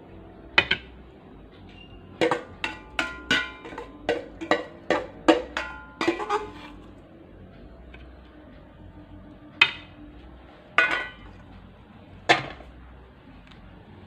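A metal serving spoon clinking and knocking against dishes while food is spooned out: a quick run of about ten ringing clinks, then three single clinks spread out near the end.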